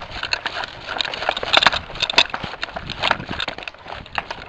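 Irregular crunching and clicking, like footsteps on dry ground and brush, with a few louder cracks about a third and two-thirds of the way through.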